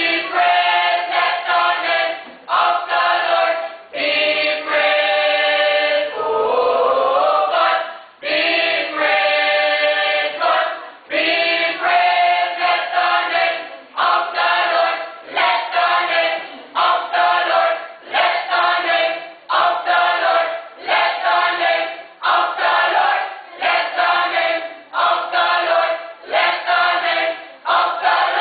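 A church choir of men and women singing together in short, evenly spaced phrases.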